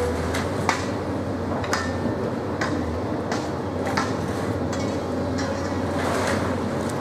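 A steady engine-like hum with irregular sharp knocks and clatters over it, roughly one or two a second.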